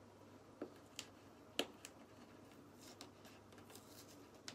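Near silence broken by a few faint, sharp clicks and taps, the loudest about one and a half seconds in.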